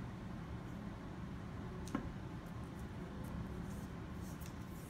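Low steady room hum with one light click about two seconds in and a few faint ticks after, from wooden craft-stick frames being handled.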